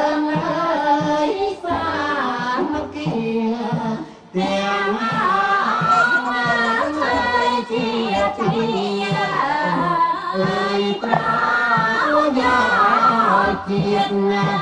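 Cambodian traditional blessing-dance music: a woman's high singing voice over melodic instruments, with a short break about four seconds in.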